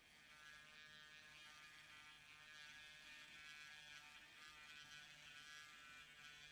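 Small handheld rotary tool running with a faint, steady whine as its soft rubber-like polishing tip buffs a stove's metal fuel tube.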